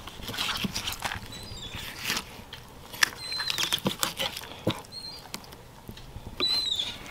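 Fillet knife slicing and scraping through a sea trout on a cleaning table, with scattered knocks and clicks of the blade and fish against the board. Several short, high chirps come in among the cutting, the loudest near the end.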